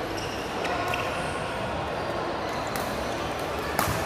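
Badminton rally in a hall: a few sharp racket strikes on the shuttlecock, the loudest near the end, with brief shoe squeaks on the court and voices in the background.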